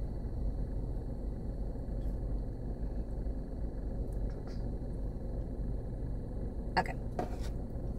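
Steady low rumble of an idling car, heard from inside the cabin. A couple of brief clicks come near the end.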